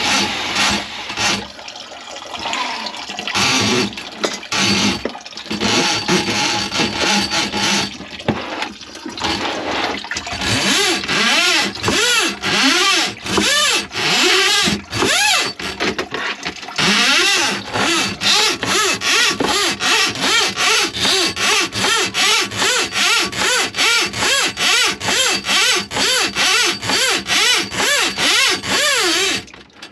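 Water sloshing and gurgling in a blocked kitchen sink drain. It is irregular at first, then from about halfway in settles into a steady rhythm of short surges, about two a second.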